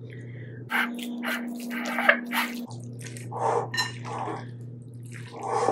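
Wet, squelching clicks and squishes of a wooden spoon stirring a thick creamy mixture of ham, sausage and cheese in a glass bowl, over a steady low hum.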